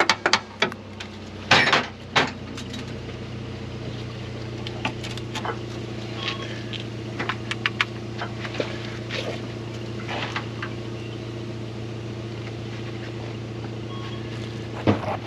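Metal tool clicks and clinks from wrench work under a car, with a quick run of clicks at the start and a louder clatter about two seconds in. A steady engine hum runs underneath.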